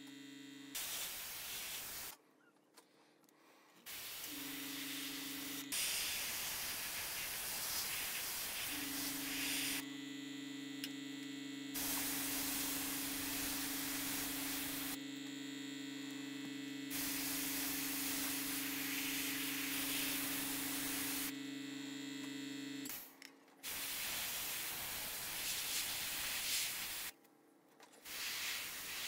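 Airbrush spraying paint in repeated bursts of a few seconds each, a high even hiss that starts and stops as black pre-shade is sprayed through a splatter template. Under it a low steady hum cuts in and out, running through most of the middle.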